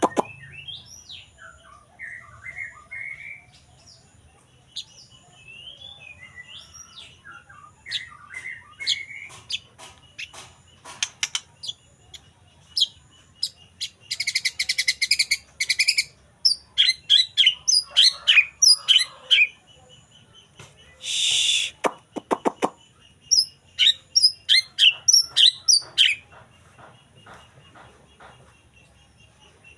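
White-rumped shama singing: varied whistled phrases and quick chirps, broken by a harsh rattle about fourteen seconds in and a short harsh burst about twenty-one seconds in, then a run of rapid loud notes.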